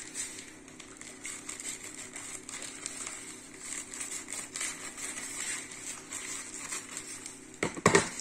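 Plastic courier mailer being handled and pulled open by hand: irregular crinkling and rustling of the plastic, with a louder burst of crackling near the end.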